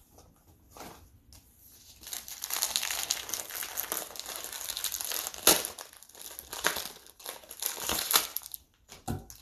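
Crinkly plastic packaging of a scent pack rustling and crackling as it is handled and opened. The crinkling thickens about two seconds in, with a few sharper crackles, and dies away near the end.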